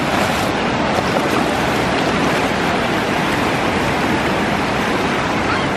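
Shallow ocean surf washing in over the sand and splashing, a steady rush, with wind rumbling on the microphone.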